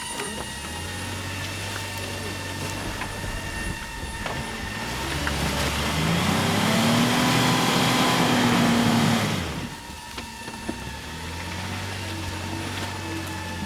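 Jeep Wrangler JKU's engine running under load off-road, rising in pitch and level about five seconds in, held there for a few seconds, then falling back near the end of that stretch to a steadier note.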